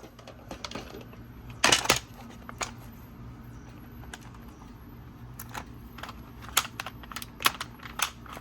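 Sharp clicks and light clatter of small hard parts being handled: a loud double knock about two seconds in, then a scattered run of clicks near the end.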